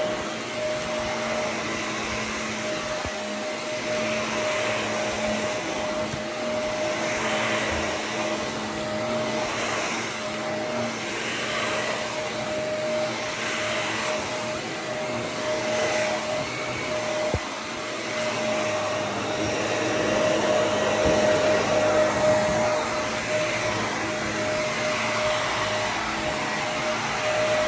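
Corded upright vacuum cleaner running steadily on carpet, a constant motor whine over rushing air, swelling and easing every couple of seconds as it is pushed back and forth.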